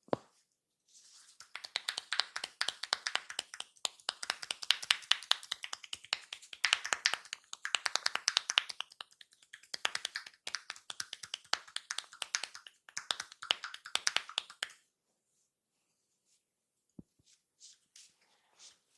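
A barber's hands percussing a customer's head in an Indian head massage, heard close up as a fast run of clicks and pats. They come in several bursts with short breaks and stop about fifteen seconds in. A single soft knock follows near the end.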